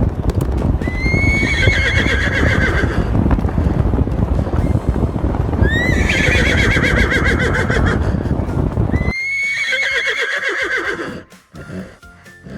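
Horse whinnying three times, each call jumping up and then quavering down in pitch, over a steady clatter of hoofbeats that cuts off about nine seconds in.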